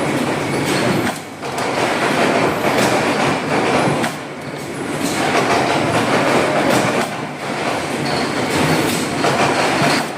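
CNC machine running and cutting with several tools: a loud, dense mechanical noise that dips briefly about a second in, at about four seconds and near seven seconds.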